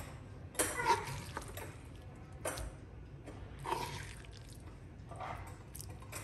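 A wooden spoon spreading and pressing a moist minced-meat and grated-vegetable filling in a glass baking dish: about four soft, wet scrapes and taps, a second or so apart.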